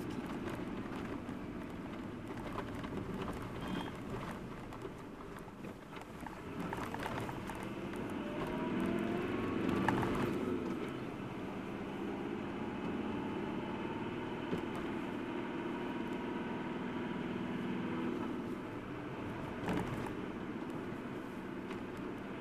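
A vehicle's engine and road noise heard from inside the cabin while driving in city traffic; the engine note rises and swells about eight to ten seconds in as it picks up speed.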